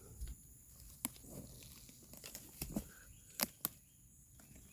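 Dry leaf litter and twigs being disturbed: faint rustling with a few scattered sharp cracks and snaps, the strongest two close together near the end.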